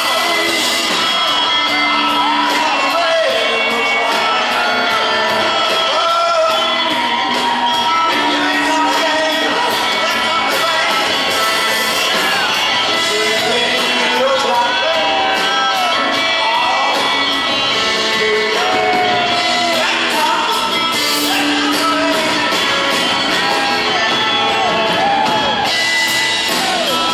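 Live rock trio of electric guitar, drum kit and upright bass playing a song with a sung vocal, heard in a large hall, with shouts and whoops from the audience.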